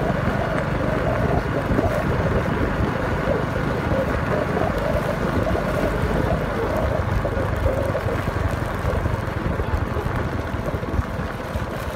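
Motorbike running steadily at riding speed, with wind rushing over the microphone.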